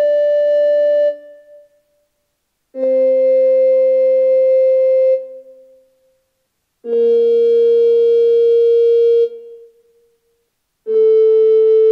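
Treble (alto) recorder playing a descending F major scale in long held notes of about two and a half seconds with short gaps: the end of D, then C, B-flat, and A starting near the end. A fainter tone sounds an octave below each note.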